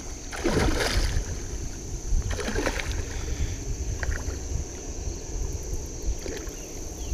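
A hooked common carp splashing at the surface close to the bank as it fights the line: a loud splash about half a second in, another about two and a half seconds in, and smaller splashes later.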